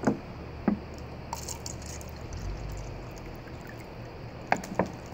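Water being poured into a plastic cup to fill it, a low trickling noise with a few light knocks and clicks from handling the cup.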